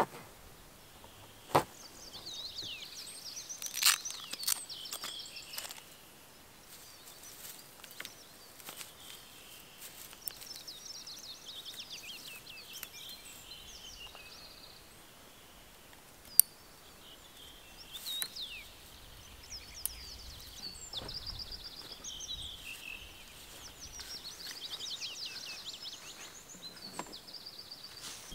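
Songbirds singing, with repeated rapid trills, chirps and quick falling whistles throughout. A few sharp clicks and knocks from handling the folding solar panel and its cable, the loudest about halfway through.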